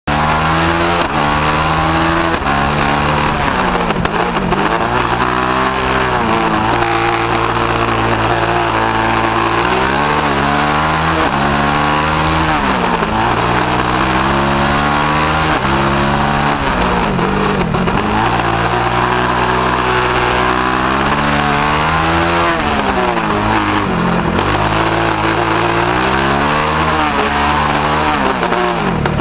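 Engine of a small open-wheel race car, heard from onboard, revving up under acceleration and dropping off sharply, over and over, as the car accelerates, shifts and slows for corners and cones.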